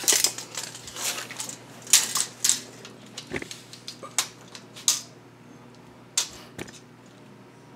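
Tape measure being pulled out and laid along a window screen frame: a run of sharp clicks, rattles and short scrapes, thickest in the first five seconds, with a couple more about six seconds in.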